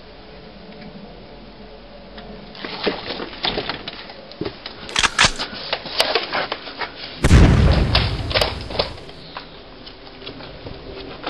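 Battle sound effects: a run of sharp gunshots, then a loud explosion boom about seven seconds in that rumbles for a second or so, followed by more scattered shots.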